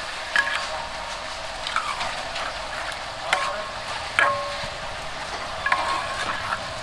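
Food frying in a pan with a steady sizzle, and a metal utensil knocking and scraping against the pan about five times, some knocks ringing briefly.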